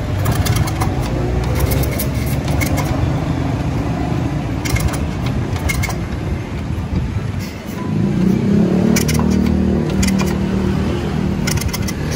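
Single-cylinder engine of a Honda Kirana motorcycle being started after long storage, turning over and running with a low steady note. About eight seconds in it dips briefly, then runs on at a higher pitch.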